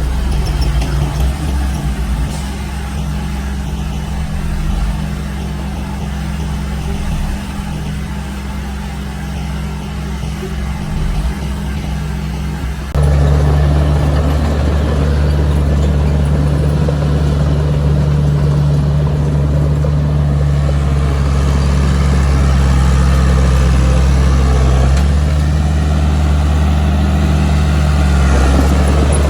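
Heavy diesel engine of earth-moving machinery running steadily. About 13 seconds in, the sound changes abruptly and becomes louder and fuller.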